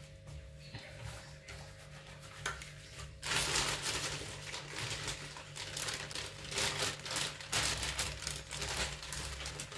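Plastic bag of universal potting soil crinkling and rustling as it is tipped, with soil pouring out of it into a plastic planter. The crackling starts about three seconds in and goes on in an uneven run of rustles.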